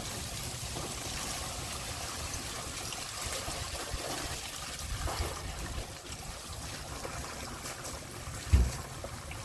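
Water trickling and splashing as it is scooped by hand over a wet dog's thick coat in a plastic bath tub. A single low thump near the end.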